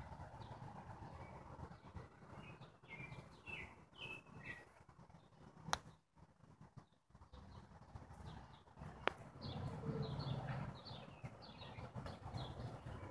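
Faint small birds chirping in short, quick calls, in two spells, over a low background rumble. Two sharp clicks, one a little before the middle and one about two-thirds of the way through.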